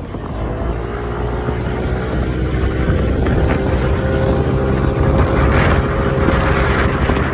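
A boat's motor running at a steady speed, with wind buffeting the microphone.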